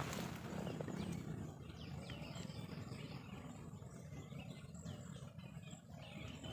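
Small birds chirping, many short high calls scattered through, over a low steady rumble.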